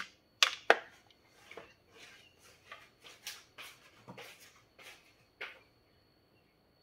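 Metal spoon scraping and tapping in a paper bento box of rice: two sharp clicks near the start, then a run of softer scrapes and taps that stop about five and a half seconds in.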